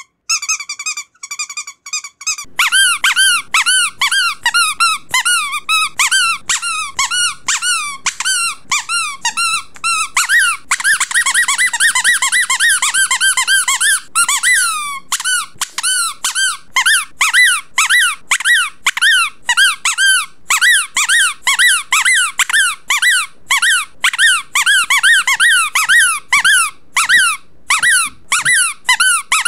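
Rubber duck toy squeaked over and over. A few short, even-pitched squeaks come first; then, from about two and a half seconds in, a fast run of squeaks follows, two or three a second, each rising and falling in pitch, and they crowd together for a few seconds in the middle.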